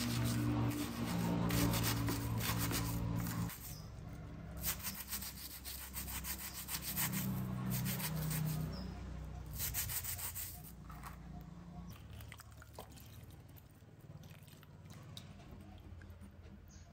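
A brass-wire scratch brush scrubbing a gold chain bracelet on a wet, soapy wooden board, with quick back-and-forth strokes in bouts that thin out and fade over the last few seconds. This wet scratch-brushing is a goldsmith's finishing step that brightens the gold.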